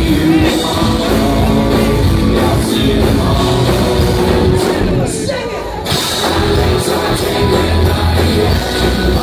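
Live rock band playing loud through a venue PA, heard from the crowd: drums, electric guitars and vocals. The band thins out briefly about five seconds in and comes back in full just before the six-second mark.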